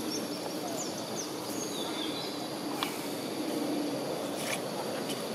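Outdoor ambience: a steady hiss of background noise with a few faint, short high chirps and occasional light clicks.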